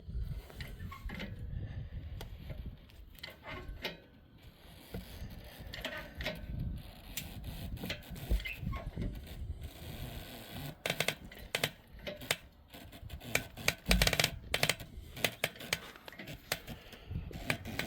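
Strap being tightened to separate a Hutchinson beadlock wheel from its tyre: bursts of rapid clicking that come thicker from about eleven seconds in. A heavy thump about fourteen seconds in, as the wheel pops loose from the tyre.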